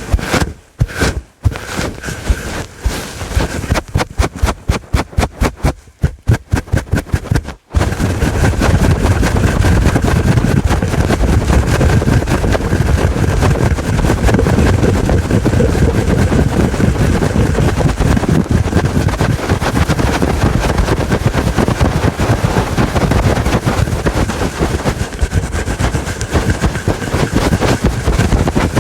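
Fluffy furry microphone cover scratched hard and fast right on the microphone, making loud rubbing, crackling noise. At first it comes as separate quick strokes, about four or five a second. About eight seconds in, it turns into continuous scratching.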